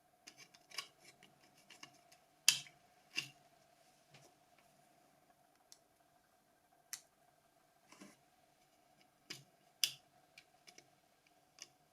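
Scattered clicks and taps of a Nokia 5210's small plastic parts being handled and fitted into a body shell, with sharper snaps about two and a half seconds in and near ten seconds. A faint steady hum runs underneath.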